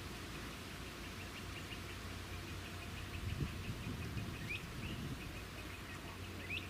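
High-pitched animal calls over a steady outdoor background: a rapid run of faint ticks and two short rising chirps, one past the middle and one near the end. There is also a brief low rumbling bump about three and a half seconds in.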